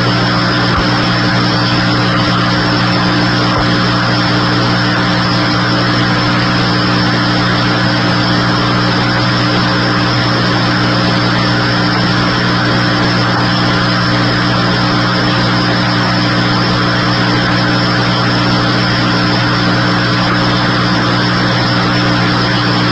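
A steady engine drone under a constant hiss, holding one pitch without change, then cutting off abruptly.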